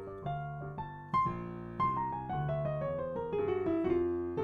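Piano playing a jazz 2-5-1 in F, the left hand sounding the chords while the right hand plays a C altered scale (C, D♭, E♭, E, G♭, A♭, B♭) over the C7. A fresh chord is struck about a second in, and a right-hand run falls steadily in pitch from about two seconds in.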